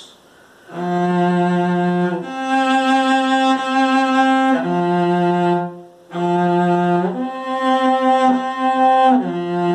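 A cello bowed in sustained single notes: a lower note steps up to a higher held note and back down. After a short break about six seconds in, the same pattern is played again, sounding melodic intervals.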